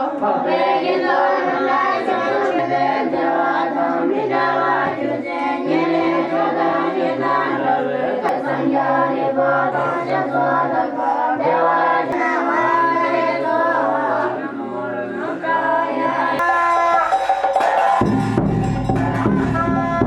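Background music with sung vocals over a stepping bass line. About sixteen seconds in it changes to a fuller section with heavier bass.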